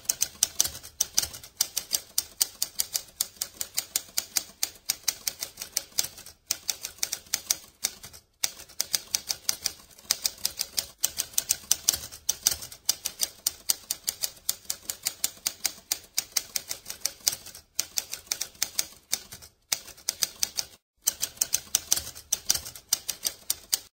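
Typewriter keys being struck in a rapid run of sharp clacks, broken by a few brief pauses.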